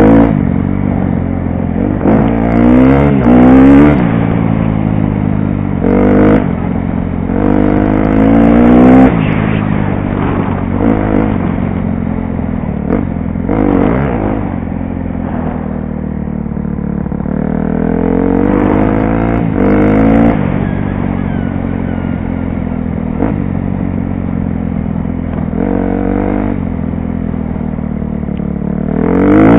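2012 KTM 250 SX-F motocross bike's single-cylinder four-stroke engine running under way, its pitch rising again and again as the throttle opens and falling back as it eases off.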